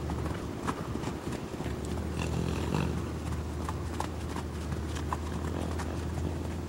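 A horse's hooves on a sand arena as it trots and canters loose: soft, irregular hoofbeats over a steady low rumble.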